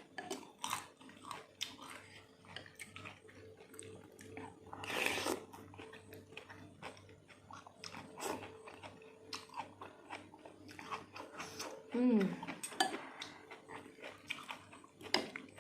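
Mouth sounds of eating seblak: wet chewing and biting with small clicks, one louder noisy burst about five seconds in. A short falling hum of voice comes about twelve seconds in.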